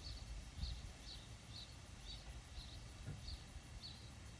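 Faint outdoor ambience: a small animal's high, short chirp repeating steadily about twice a second, over a low rumble.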